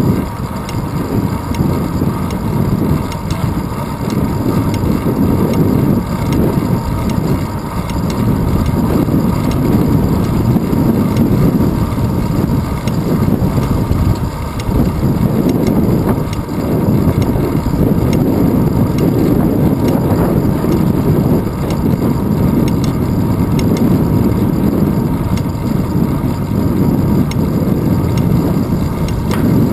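Wind rumbling and buffeting across a handlebar-mounted GoPro Hero 2's microphone on a moving road bike, a loud, low, unsteady roar mixed with road and tyre vibration through the mount.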